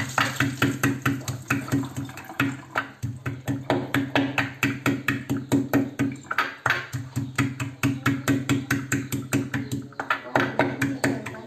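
Wooden pestle pounding field crabs in a small ceramic bowl, in steady, rhythmic strikes about four to five a second.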